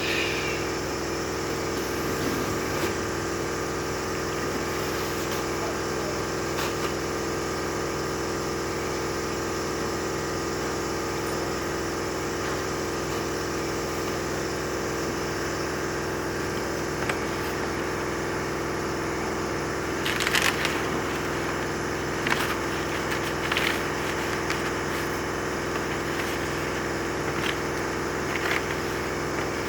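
Kia Sorento 2.5 D4CB four-cylinder common-rail diesel engine idling steadily, with a few short sharp clicks about two-thirds of the way through.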